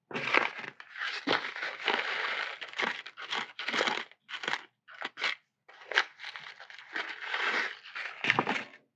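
Crunchy scraping and rustling of small plastic model parts being worked by hand, in irregular bursts with short gaps.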